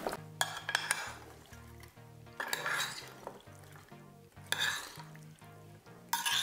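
Metal spoon scraping and clinking against a clay baking dish as raw chicken liver and vegetable chunks are stirred, in several short bursts, over soft background music.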